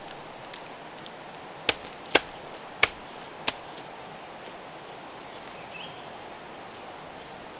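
Steady outdoor insect drone with a thin high whine. Four sharp knocks cut through it, a little over half a second apart, starting a little under two seconds in.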